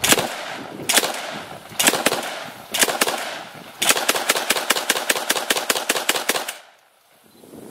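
AA-12 fully automatic 12-gauge shotgun firing. First come several single shots spaced about a second apart, then a sustained automatic burst of about five shots a second, its 300-rounds-per-minute rate, for roughly two and a half seconds, which stops abruptly near the end.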